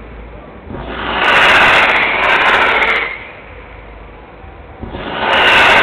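Fireworks hissing in two swells, each about two seconds long, with a quieter gap between them.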